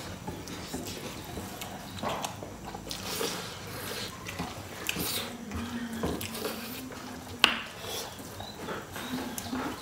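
Eating sounds: rice and dal mixed by hand on metal plates, with chewing and mouth smacks and small clicks of fingers against the plates. One sharp click about seven and a half seconds in is the loudest sound.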